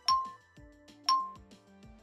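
Quiz countdown timer sound effect: a short, bright ping once a second, two in all, each ringing off quickly, over soft background music.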